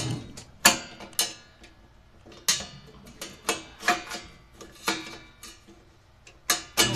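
A run of about a dozen sharp clicks and knocks at uneven intervals, each with a short metallic ring, like hard objects being handled.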